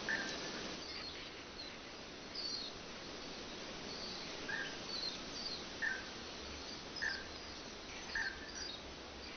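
Songbirds calling over a steady rush of waterfall water: a short call repeated about once a second, with thinner, higher chirps in between.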